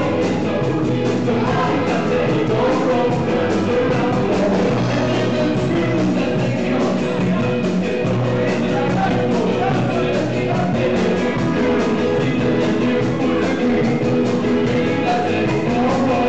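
Live rock band playing loud and steady: electric guitars, a drum kit and a singer on a microphone.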